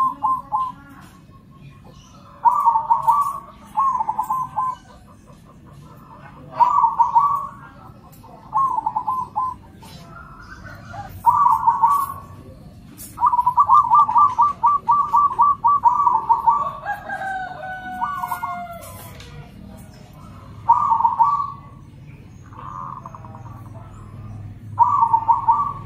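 Zebra doves (perkutut) cooing and answering one another: short phrases of quick stuttering coo notes every couple of seconds, with one long run of notes in the middle. A falling call comes in just after the long run, and the phrases near the end are quieter.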